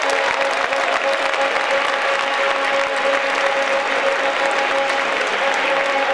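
Indoor futsal crowd applauding a goal, a steady dense clapping throughout. A steady held note sounds under the applause and breaks off briefly near the end.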